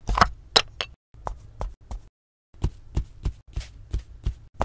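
Short, sharp plastic clicks and taps of a cosmetic powder compact being handled and opened, about a dozen in three quick runs broken by brief silences.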